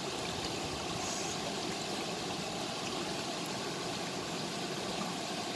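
Steady rush of water from a small waterfall cascading into a stream pool.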